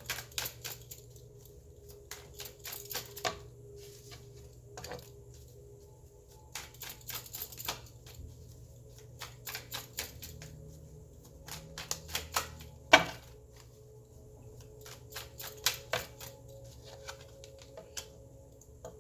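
Tarot cards being shuffled and handled: an irregular run of sharp clicks and taps in clusters, with one louder knock about two-thirds of the way through.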